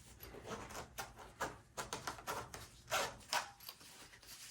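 Handling noises from a package being opened: irregular light clicks and rustles, a few of them sharper.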